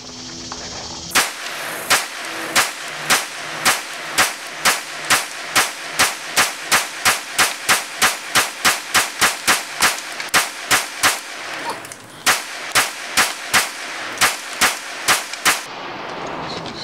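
Glock 22 pistol fitted with a 9mm conversion barrel firing a long string of about thirty 9mm shots, roughly two a second and quickening in the middle, with a short break before the last few. The pistol feeds and cycles from a 33-round Glock magazine with no jams or failures to feed.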